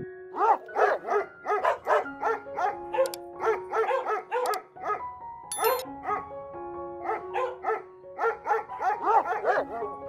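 A dog barking in quick repeated barks, about three a second, with a short break a little past the middle, over background music of soft held notes.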